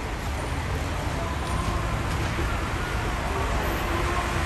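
Steady road traffic noise, a continuous hum of cars on a city street.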